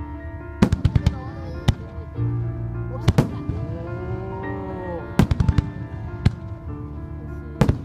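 Firework shells bursting in a dozen or so sharp bangs, some in quick clusters about a second in and at about five seconds, over music played for a display choreographed to music.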